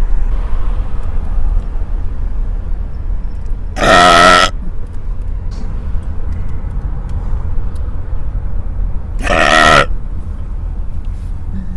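Two loud, drawn-out belches about five seconds apart, each lasting well under a second, over the steady low rumble of a car driving.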